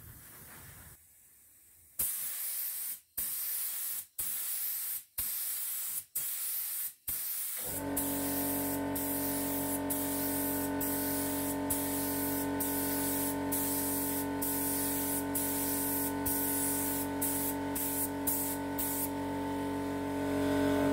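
Compressed-air paint spray gun hissing in a series of trigger pulls, about six short bursts a second or so each, then spraying almost continuously with brief breaks. About a third of the way in, a steady motor hum starts underneath and keeps running: the air compressor kicking in to refill as the pressure is used up.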